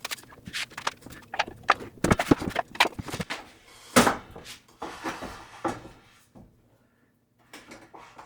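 Irregular knocks, clunks and clatter of objects being shifted and moved by hand, one sharper knock about four seconds in, then a short quiet stretch and a few softer knocks near the end.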